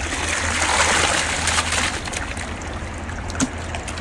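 River water rushing steadily, with a few small splashes.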